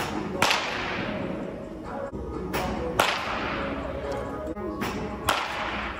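Baseball bat cracking against pitched balls three times, about two and a half seconds apart, each hit followed by a short echo. A softer knock comes just before the second and third hits.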